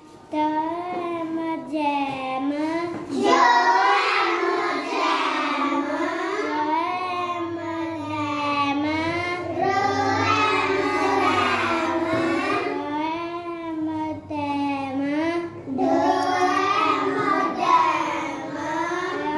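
A young boy's voice reading aloud from a phonics book in a continuous sing-song chant, sounding out letters and words, louder from about three seconds in.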